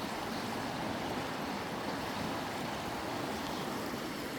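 Klamath River water flowing steadily, an even rushing with no breaks.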